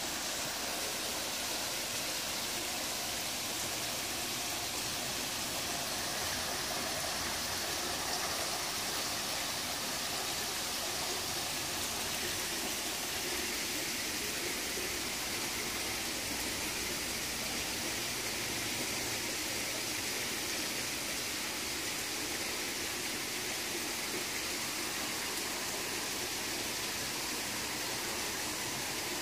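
Steady rush of running water, an even noise that neither rises nor breaks.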